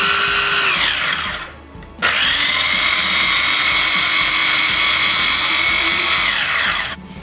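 Kenwood electric mini chopper running in pulses as it blends egg whites, lemon juice and garlic: a steady high whine that winds down about a second in, then after a short pause a second run of about four seconds that falls in pitch as it spins down near the end.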